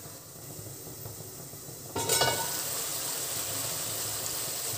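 Chicken curry simmering in a covered pan, then a brief metallic clink about two seconds in, after which the uncovered curry sizzles steadily and louder.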